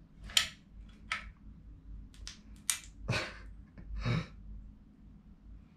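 Hand caulking gun being squeezed to press construction adhesive out of a tube: a series of short, irregularly spaced clicks and pops from the trigger and plunger and from the glue squirting out.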